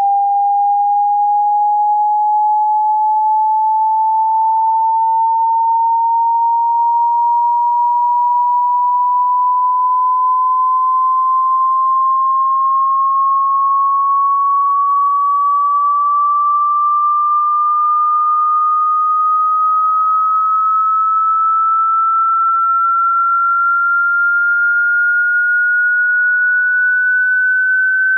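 A single pure sine tone gliding slowly and evenly upward in pitch, about an octave over the stretch, at a steady loudness: a hearing-test frequency sweep.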